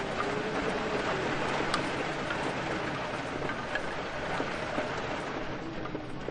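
Steady, dense rainfall, with a few sharper drop ticks standing out.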